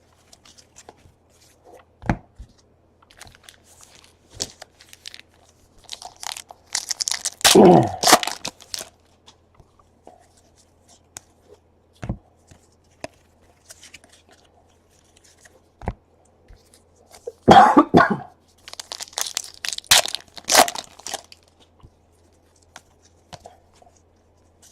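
Trading-card pack wrappers being torn open and crinkled, with cards handled and tapped. There are scattered small clicks and two louder bursts of tearing and crinkling, one about a third of the way in and one past the middle.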